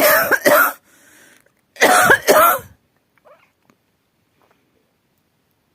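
A person coughing in two fits of two harsh coughs each, about two seconds apart, with a breath drawn in between. It is a stubborn cough that has hung on for about a week.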